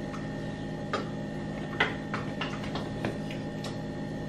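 Scattered light clicks and taps from handling food and a wooden spoon at a blender jar, the sharpest a little under two seconds in, over a steady low hum.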